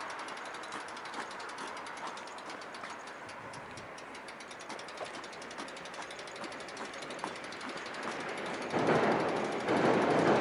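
A train passing a level crossing: a steady running noise with faint clicks, then about nine seconds in a loud, rhythmic clatter of wheels begins.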